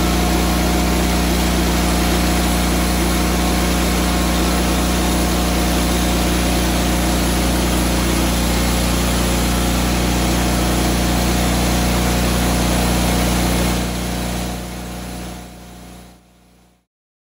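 Wood-Mizer LT40HD portable bandsaw mill's engine running steadily, an even hum of several tones. Near the end the sound drops away in steps and cuts to silence.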